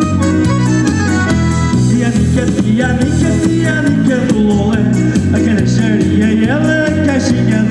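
Live band music: an accordion-led melody over a steady bass beat, in Portuguese popular festival style.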